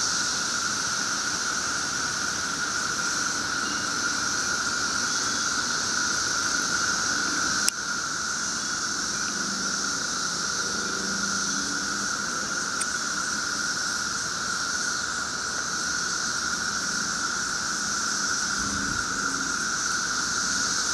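Dense chorus of many cicadas calling at once: a steady roar made of a whining drone with a high hiss above it. A single brief click about eight seconds in.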